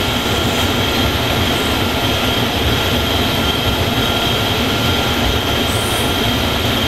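Small handheld torch burning with a steady, continuous rushing noise as it heats a battery-cable end, keeping the solder in it molten.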